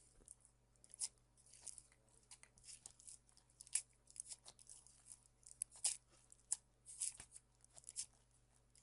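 Slime being handled close to a microphone: irregular sticky crackles and pops, with a few sharper clicks.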